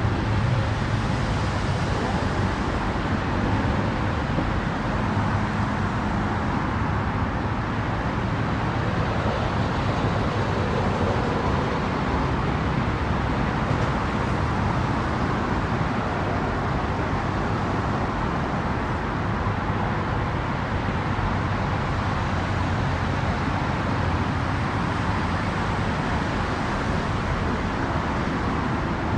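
Engines running steadily under a constant hiss of outdoor noise, with a low hum strongest in the first several seconds.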